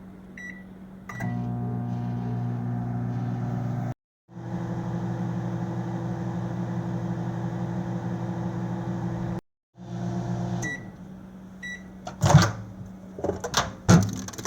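Microwave oven keypad beeping, then the oven starting and running on high with a steady electrical hum, broken twice by short silent gaps. Near the end the hum stops, two beeps sound, and sharp clicks and knocks follow as the door is opened and the tray is handled.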